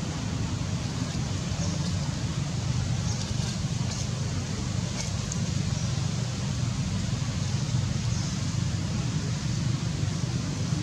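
Steady low outdoor rumble with a faint hiss over it, unchanging throughout.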